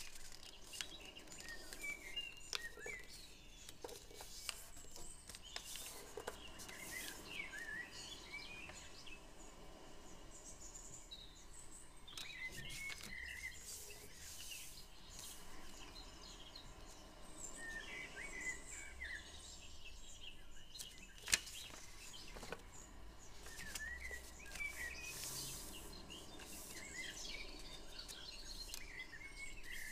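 Faint rustling and creasing of origami paper being folded by hand, with scattered sharp crinkles, the loudest about 21 seconds in. Small birds chirp now and then in the background, in short clusters of chirps.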